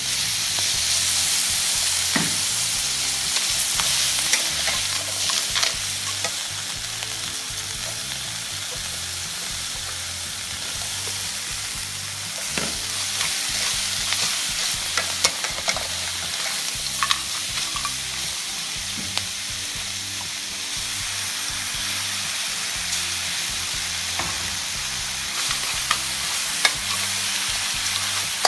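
Crabs and sliced onions sizzling in a steel wok while a metal spatula stirs and tosses them, with frequent sharp clicks and scrapes of the spatula against the wok and the shells.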